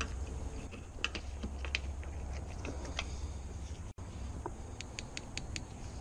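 Light clicks and ticks of a small screwdriver and pick working at an Audi A5 door's shut face and rubber weatherstrip seal, irregular at first, with a quick run of about six clicks near the end. A low steady hum sits underneath.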